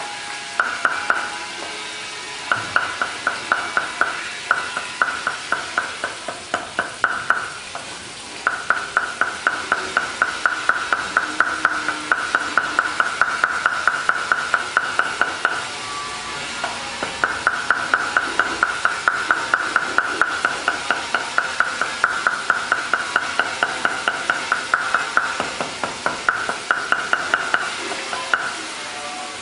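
Steel cleaver rapidly chopping garlic on a wooden chopping board, in fast, even runs of several strokes a second with brief pauses between runs.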